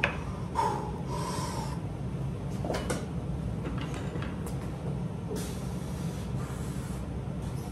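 Plate-loaded dumbbells being lowered onto a flat bench and pressed: a few short metallic clicks and knocks from the dumbbells, with heavy breathing through the set over a steady low hum.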